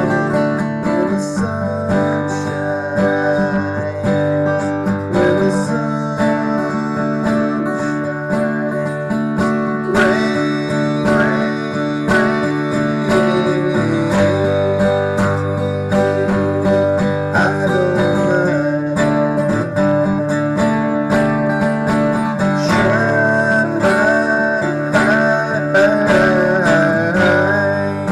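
A man singing with acoustic guitar accompaniment.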